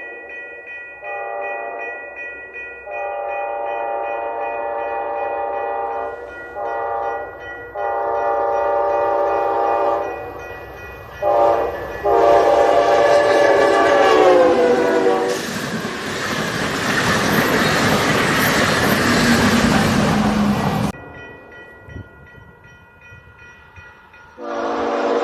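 Train air horn in a pitched-down recording, sounding a series of long and short blasts whose pitch then falls as the train goes by. The loud rush of the passing train follows and cuts off abruptly. After a brief lull another horn blast begins at the very end.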